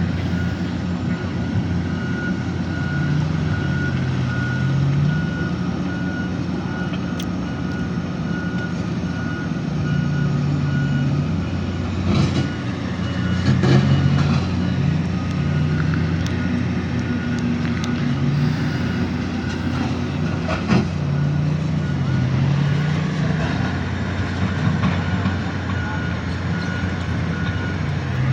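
Diesel engines of a Hitachi excavator and a bulldozer at work, the engine note rising and falling with load, while a reversing/travel alarm beeps over and over. A few sharp knocks and clanks come about halfway through.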